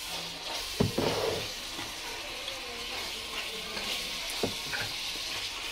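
Mutton pieces sizzling as they fry in oil in a large metal pot, stirred with a spoon that knocks sharply against the pot twice, about a second in and again later.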